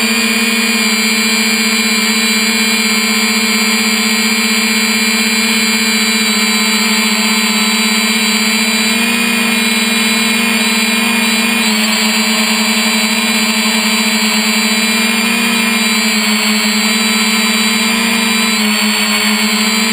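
3DR Iris+ quadcopter's four electric motors and propellers buzzing steadily in flight, heard close up through the camera carried on the drone. The pitch shifts slightly about twelve seconds in and again near the end.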